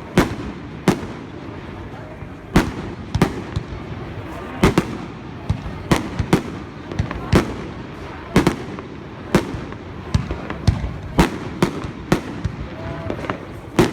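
Fireworks display: repeated sharp bangs of bursting fireworks, irregular, about one a second.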